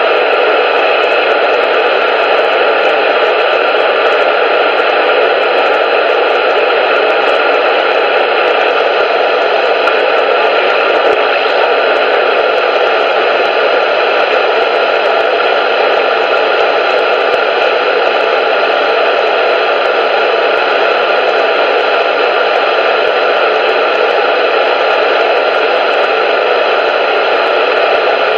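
CB radio receiver hissing steadily with the squelch open and no transmission coming through: a loud, thin static that stays even throughout.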